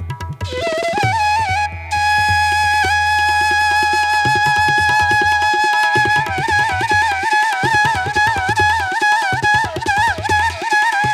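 Background music in an Indian classical style: a flute melody with held, ornamented notes over a low drone and tabla-like drumming.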